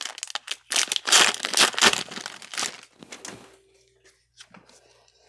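Crinkling and tearing of a baseball card pack's wrapper being opened. It is loud for about two seconds, then dies down to faint rustling.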